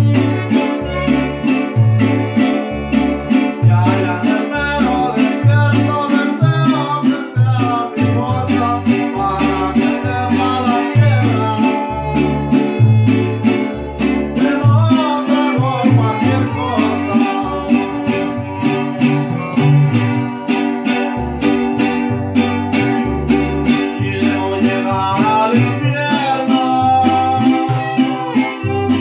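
Instrumental string-band music played live: a violin carries the melody over strummed guitars, with a steady plucked bass line beneath.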